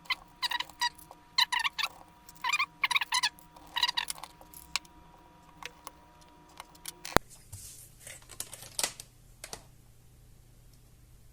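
Short bursts of rapid clicking from a screwdriver working small screws in a laptop's plastic case, over a faint steady hum. The hum stops with a sharp click about seven seconds in, and a few scattered clicks follow.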